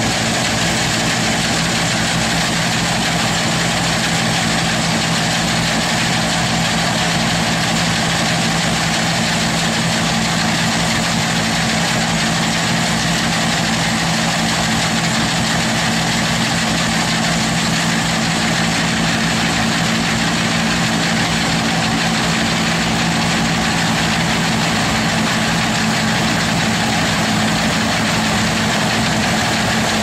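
New Holland 8080 combine harvester's diesel engine and threshing machinery running steadily while cutting a standing cereal crop: a constant low engine hum over a wide, even rushing hiss.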